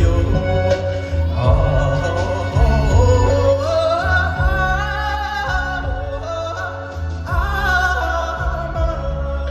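A solo high voice singing a Tibetan song over a backing track with a steady low bass. The voice holds long notes, wavering and ornamented, and rises in pitch about four seconds in and again near the end.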